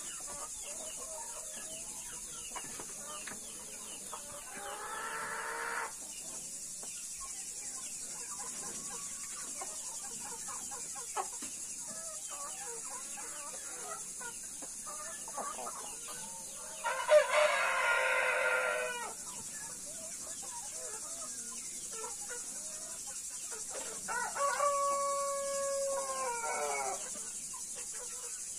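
Chickens clucking softly while they feed, with a rooster crowing three times: a short, fainter crow about five seconds in, the loudest about two-thirds of the way through, and another near the end. A steady high hiss runs underneath.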